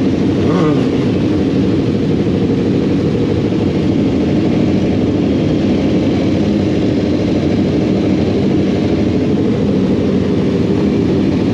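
Motorcycle engine running steadily while riding, a continuous drone that holds nearly the same pitch with no hard revving.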